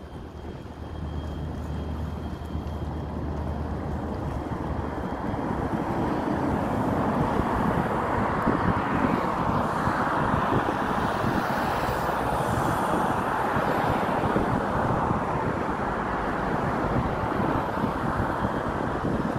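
Motor vehicle noise that grows louder over the first several seconds and is fullest around the middle, as if something passes close by.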